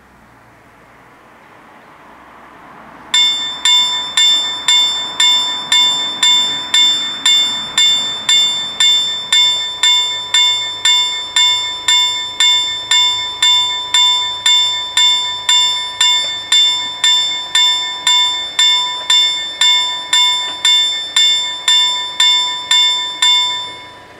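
Level-crossing warning bells start striking about three seconds in and ring in a steady, even rhythm of roughly one and a half strikes a second. They stop just before the end, once the barriers are down: the warning that a train is approaching.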